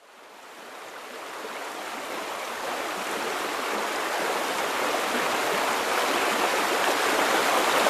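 Steady rushing of water spilling over a river weir, fading in from silence and growing steadily louder.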